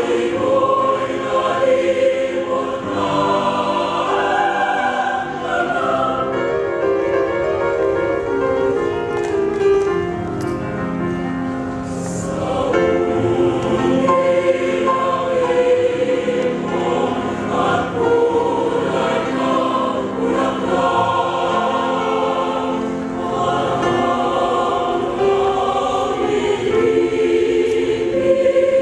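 Large mixed choir of women's and men's voices singing in sustained multi-part harmony.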